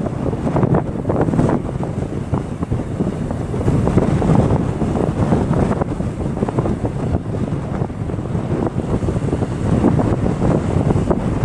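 Strong wind buffeting the microphone in an uneven, gusting rumble, with waves washing underneath.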